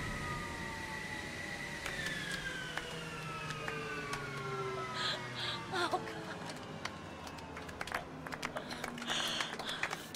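Boeing 737 jet engines winding down after shutdown: several whining tones falling slowly in pitch. Scattered clicks and a few short cries are heard over them.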